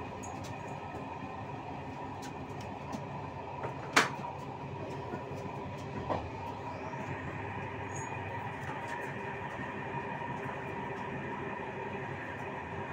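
Passenger train running, heard from the back of the train: steady rolling noise with a faint constant whine, a sharp knock about four seconds in and a lighter one about two seconds later.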